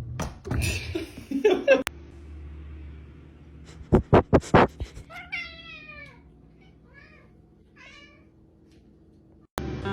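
A domestic cat meowing: one drawn-out meow about halfway through, followed by two short ones. Just before it, a quick run of five sharp knocks, the loudest sounds here.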